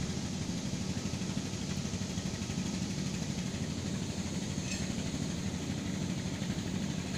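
Steady low mechanical hum like an idling engine, with one faint click about four and a half seconds in.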